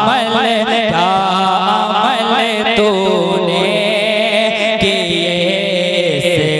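Naat being sung: a voice holds long, wavering, ornamented notes over a steady low drone.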